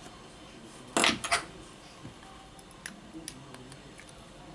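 Small metal hand tools clinking: a loud cluster of two or three sharp clinks about a second in, then a few faint clicks.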